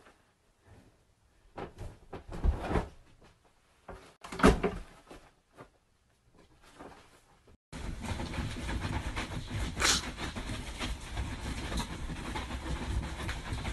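A few dull thumps and rustles as a dog moves about and lands on a bed. From about eight seconds in, a steady hiss with occasional soft thumps.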